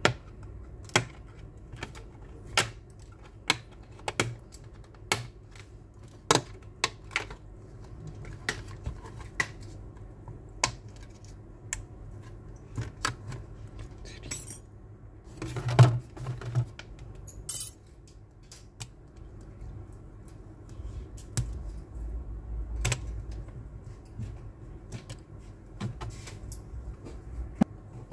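Back cover of a Samsung Galaxy Tab S2 being pried off the frame with a thin metal opening tool: a run of sharp clicks and snaps, roughly one every half second to a second, as the cover's clips let go. The loudest snap comes about halfway through, with short scraping sounds around it.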